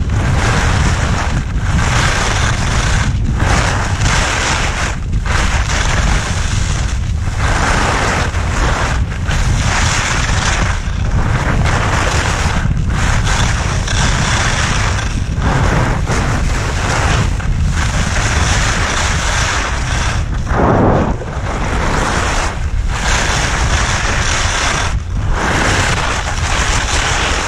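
Heavy wind buffeting on the microphone of a camera held out on a selfie stick while skiing fast downhill, over the hiss and scrape of skis carving packed snow. The hiss dips every second or two as the skier turns, and swells briefly once about three-quarters of the way through.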